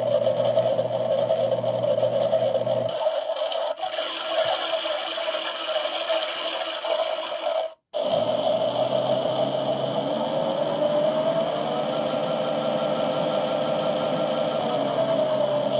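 Washing machine running on a 60° synthetics programme: its motor gives a steady whine over a rattling drum. The sound cuts out for a moment about eight seconds in. Later the motor's pitch rises slightly and then settles back.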